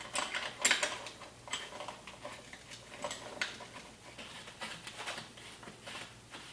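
Light, irregular metal clicks and clinks of small bike parts and tools being handled, as flat pedals are readied for fitting to the cranks; the sharpest clink comes about two-thirds of a second in.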